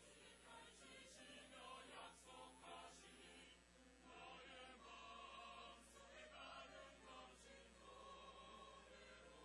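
Mixed church choir of men and women singing a hymn in Korean.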